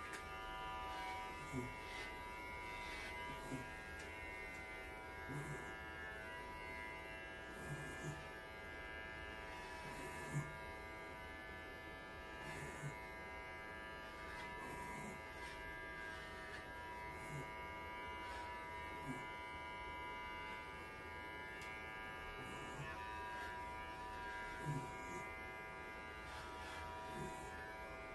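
Electric pet hair clippers running with a steady buzzing hum as they shave a Welsh Corgi's coat, with short soft knocks every second or two.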